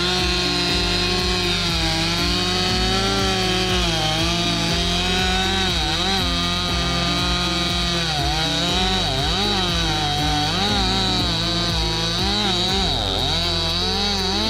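Stihl MS 261 C two-stroke chainsaw cutting through a log, its engine pitch dipping and recovering again and again as the chain bites into the wood.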